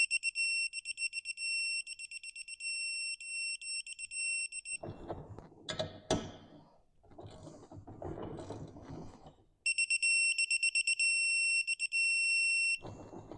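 Digital torque wrench beeping at a high pitch while bolts are tightened to 25 Nm. The rapid beeps run together into a near-steady tone as the set torque is reached, and this happens twice. Between the two beeping spells come the knocks and clatter of the wrench being handled, with a sharp click about six seconds in.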